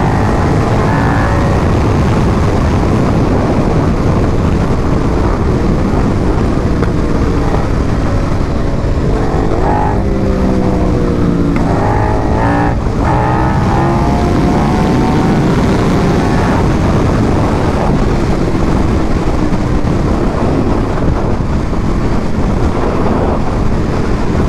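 KTM 1290's V-twin engine under way at riding speed. Its note climbs and drops as the throttle is opened and gears are changed, most clearly about ten to thirteen seconds in, over a steady, loud rush of wind noise.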